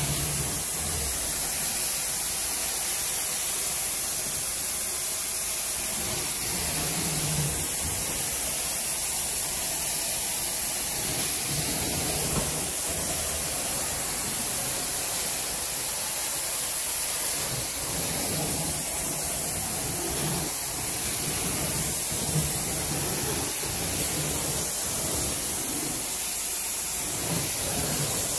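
Carpet-cleaning extraction wand worked along carpet, its vacuum suction and cleaning-solution spray making a steady, loud rushing hiss.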